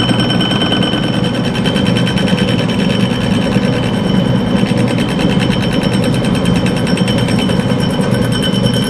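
Metal lathe turning a brazed cast-iron gear while the cutting tool skims the built-up tops of its teeth. The tool strikes each tooth in turn, giving a steady, rapid clatter over the running lathe with a few steady high tones.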